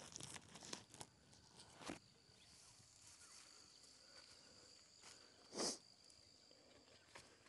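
Faint rustling and handling noises of someone walking through field plants, over a steady high-pitched insect buzz. One louder brushing noise comes about five and a half seconds in.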